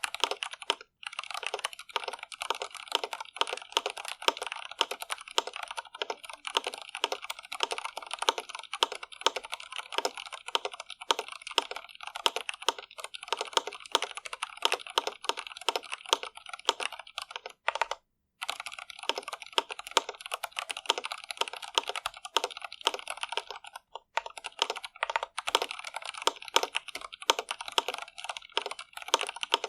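Continuous fast typing on an Iqunix L80 mechanical keyboard with stock Cherry MX Red linear switches: a rapid run of keystroke clacks with short pauses about a second in, near the middle and a little after.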